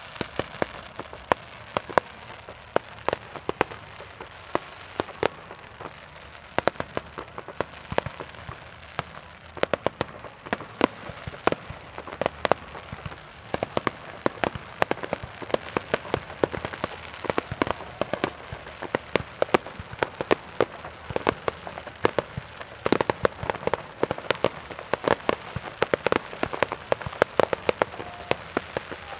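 Fireworks display: shells bursting in a dense, irregular stream of sharp bangs and crackling, several reports a second, growing denser after about ten seconds.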